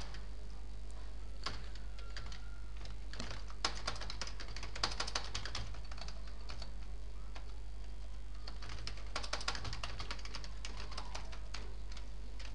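Computer keyboard typing: quick runs of keystrokes about four seconds in and again near ten seconds, with scattered single clicks between, over a steady low hum.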